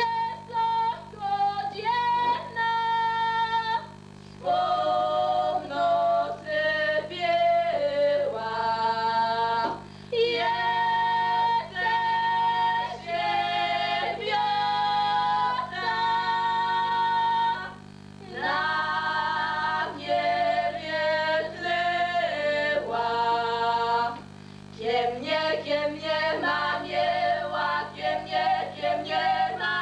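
Three women singing unaccompanied in Podhale highland (góralski) folk style: long held notes in phrases, with short breaks between them. A steady low hum runs underneath.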